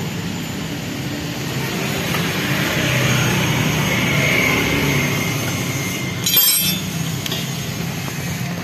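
A steady rumble that swells and then fades, with a sharp metallic clink about six seconds in as a metal hand tool strikes the scooter's exposed engine parts.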